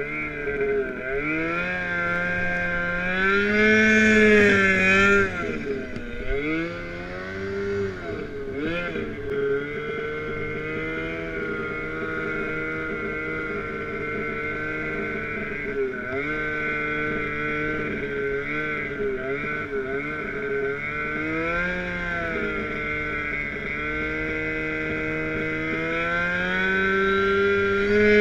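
Turbocharged Ski-Doo Summit snowmobile engine pulling through deep powder, its pitch rising and falling as the throttle is worked, then holding a steadier drone through the middle before climbing again near the end.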